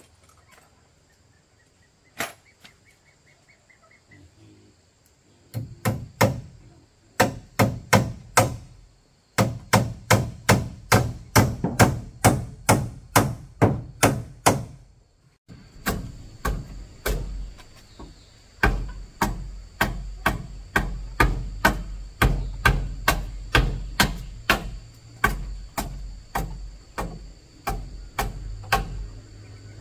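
A hand tool striking over and over in steady, rapid blows, about two or three a second. The blows come in two long runs with a short pause about halfway, after a single knock near the start.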